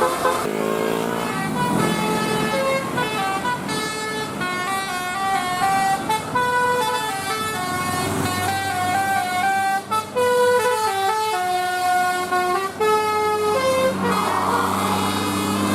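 Telolet basuri melody horn on a bus playing a tune of quick stepped notes that rise and fall, with the engine's low rumble underneath.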